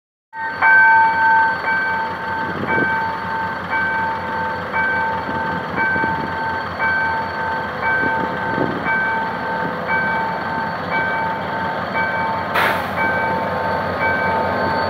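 Level-crossing warning bell ringing about once a second as a GM GT-22 CW-2 diesel locomotive hauling a passenger train approaches and starts through the crossing, the train a rumble under the bell. A short sharp noise cuts in about three-quarters of the way through.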